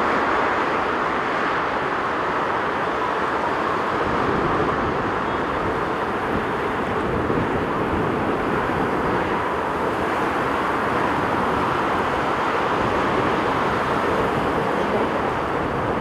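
Four jet engines of a Boeing 747-400 freighter at takeoff thrust: a steady, unbroken roar as it lifts off and climbs away.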